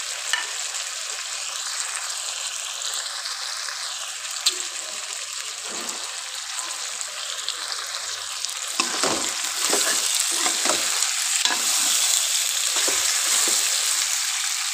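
Chicken and potato cubes sizzling in hot oil in a pan. From about nine seconds in, a metal spoon stirs them, knocking and scraping against the pan, and the sizzle grows louder.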